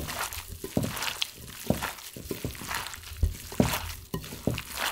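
Shredded dried pollack coated in sticky gochujang seasoning being mixed by hand in a bowl: irregular squishing and crackling with scattered knocks.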